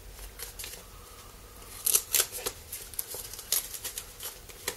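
Paper envelope being handled and its flap lifted: sharp crinkling and rustling of stiff paper in short bursts, starting about two seconds in.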